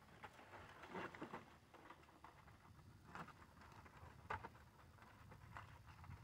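Faint crinkles and scattered light taps of aluminium foil and a foil pan being handled in a barrel grill, with a few sharper ticks about a second in and just past the middle.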